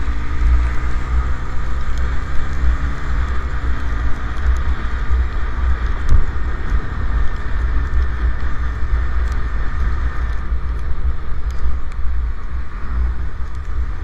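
Wind buffeting the microphone of a moving motorcycle, a steady loud rumble with road and engine noise beneath it. The drone of a truck being overtaken fades out in the first second.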